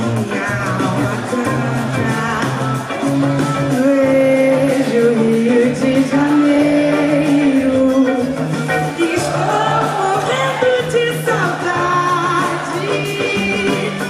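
Live band playing a samba, with a sung melody held and bending over a steady, repeating bass line.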